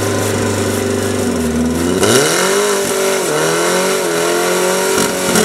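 Portable fire pump engine running steadily, then revved up hard about two seconds in, its pitch climbing sharply and then wavering as it drives water out into the attack hoses.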